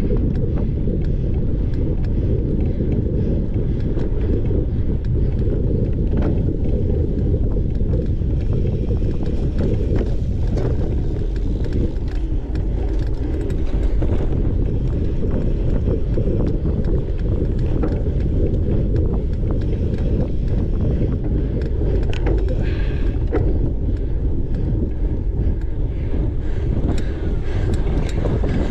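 Wind buffeting the microphone of a bike-mounted camera while a cyclocross bike is ridden at speed over a rough dirt course: a steady low rumble with scattered clicks and rattles from the bike.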